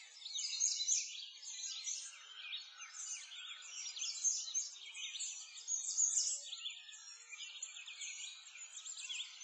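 Many songbirds chirping at once, quick high calls overlapping without a break.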